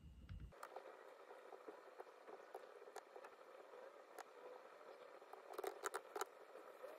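Faint typing on a laptop keyboard: scattered single key clicks over quiet room hiss, then a quick run of keystrokes about five and a half seconds in.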